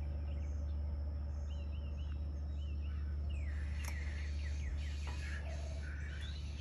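Small birds chirping in short repeated notes over a steady low hum, with a few faint clicks about halfway through.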